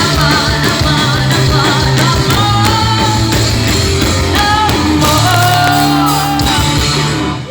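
Rock band playing live with a lead singer, loud and full, the music stopping suddenly right at the end.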